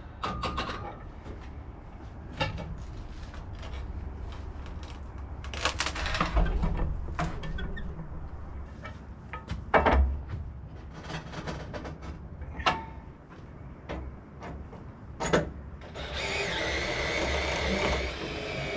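Scattered knocks and thumps of sawn pine boards being handled on a sawmill, then a steady machine whine that starts near the end.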